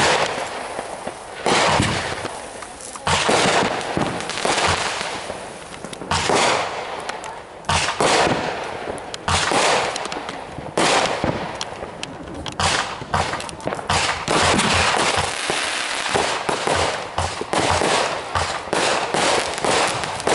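Consumer aerial fireworks going off in quick succession: sharp bangs, each trailing off in a fading crackle or echo, several a second at times and most tightly packed in the last half.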